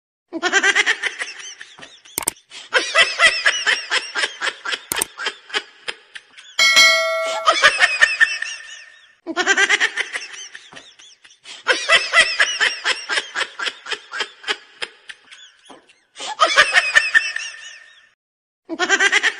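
Several runs of loud laughter, each a quick string of ha-ha pulses that fades out, broken off sharply between runs. A short bell-like ding sounds about seven seconds in.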